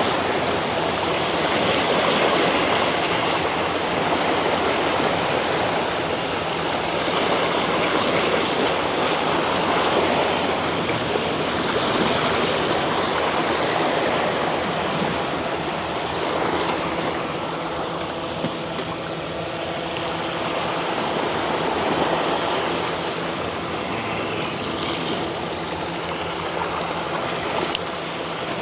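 Sea waves washing against rocks: a steady rush of surf that swells and eases every few seconds.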